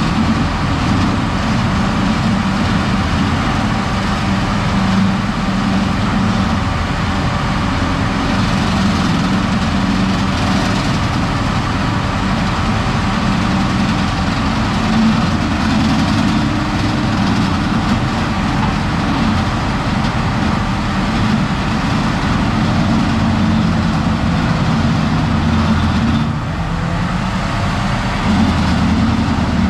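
Heavy diesel logging machinery running steadily, dipping briefly in level near the end before picking back up.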